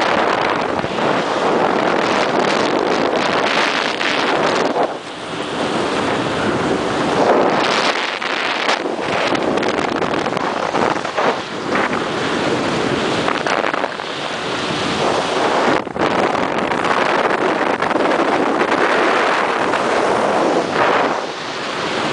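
Motorboat under way across choppy water: wind buffeting the microphone over the steady rush of the hull through the waves.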